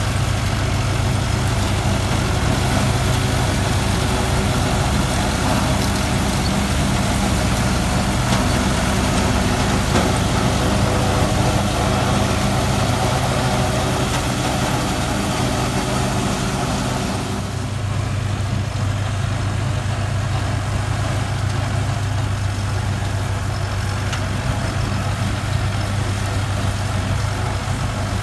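Massey Ferguson 385's four-cylinder diesel engine running steadily under PTO load, driving a wheat straw chopper whose chopping and blowing adds a dense rushing hiss over the engine's low drone. About two-thirds of the way through the hiss drops back while the engine drone carries on.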